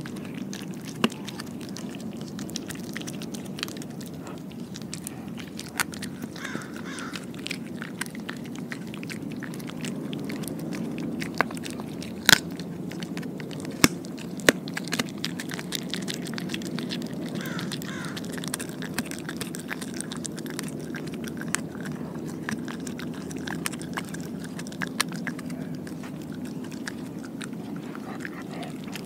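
A dog chewing and biting on a piece of raw pork skin held out to it, with many scattered sharp clicks and crunches of teeth, the loudest a little after halfway.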